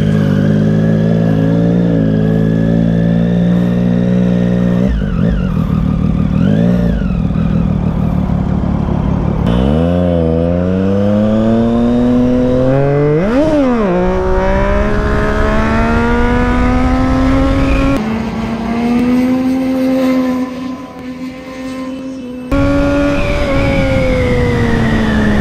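Triumph Street Triple's three-cylinder engine pulling hard along the highway, its pitch climbing through the gears with a sharp rev blip about halfway. It is quieter for a few seconds near the end, then the revs drop off as the rider eases off.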